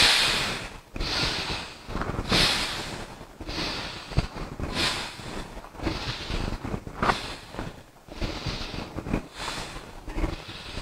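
A woman's audible breathing close to the microphone, steady noisy inhales and exhales following one another about once every second and a bit, during slow shoulder rolls and neck movements.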